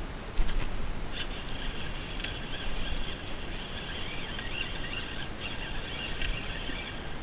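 Fishing reel being cranked steadily while a fish is played, a whirring, whining hum with a few sharp clicks from the rod and reel handling. Low wind rumble sits under it.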